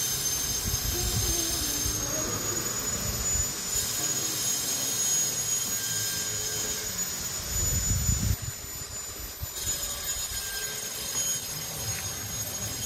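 Electric wood-routing machine running with a high steady whine, cutting into solid teak, with rough low rumbling as the bit bites, loudest about eight seconds in.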